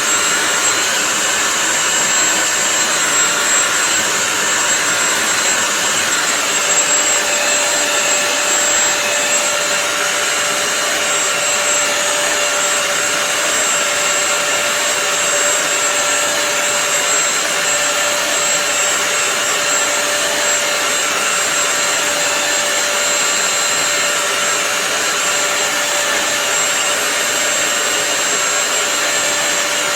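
Bissell CrossWave wet-dry floor cleaner running steadily: a continuous motor whine with a high steady tone. A lower hum joins about six seconds in.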